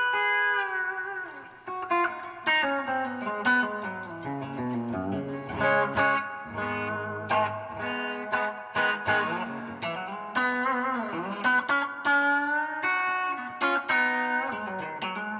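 Les Paul electric guitar played through its bridge humbucker, a rebuilt vintage pickup rewound to about 7.5K with an Alnico 2 magnet: picked single-note lines and runs with string bends and vibrato.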